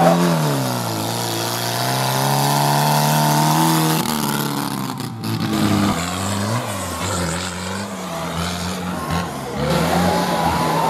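Small garden tractor engine labouring through a mud pit: its pitch drops about half a second in and holds steady, then from about the middle it revs up and down unevenly.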